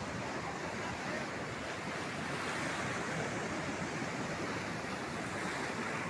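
Ocean surf breaking and washing up the shallows in a steady rush, swelling a little around the middle.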